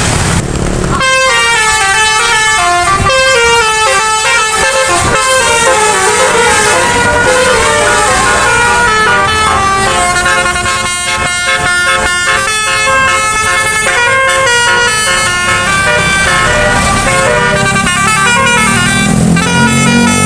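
A bus's 'telolet basuri' musical air horn playing a fast melody of short stepped notes over engine noise, starting about a second in and running on without a break.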